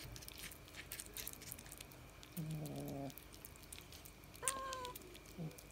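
Cats meowing twice: a lower call about two and a half seconds in, then a higher, shorter one near the end, over faint clicking from cats eating wet food out of plastic bowls.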